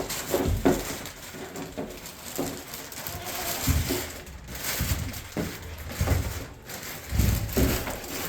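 Pigs grunting in short bursts at irregular intervals.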